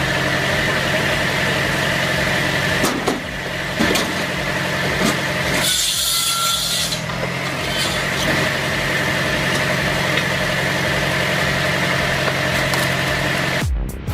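Engine-driven firewood circular saw machine running with a steady hum and a few short knocks. A brief louder, noisier burst comes about six seconds in. The sound cuts off abruptly near the end.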